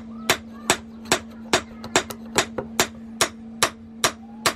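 Blacksmith's hand hammer striking steel on an anvil while forging a knife blade. The blows come in a steady rhythm, about two and a half a second, each with a short metallic ring.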